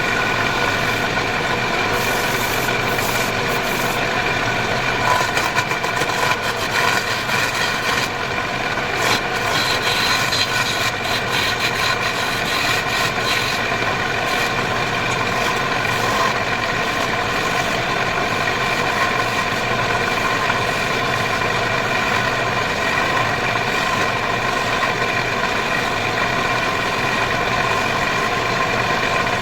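Wood lathe running steadily with an even machine hum, with scattered short clicks during roughly the first half.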